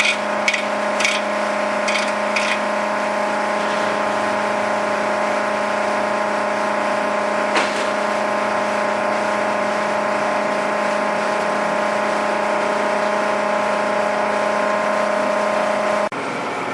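A 15-inch disc sander's half-horsepower three-phase electric motor running with a steady hum. A few light knocks come in the first couple of seconds and one more about halfway, and the hum cuts off abruptly near the end.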